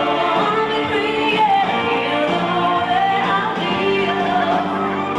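A song: a singing voice over instrumental accompaniment, held notes that glide between pitches.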